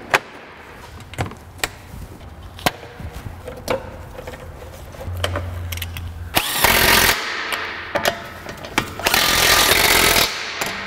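Impact wrench hammering the wheel's lug nuts tight in short bursts from about the middle on, the second burst the longest and the loudest thing here. Before that, a scatter of sharp clicks and taps.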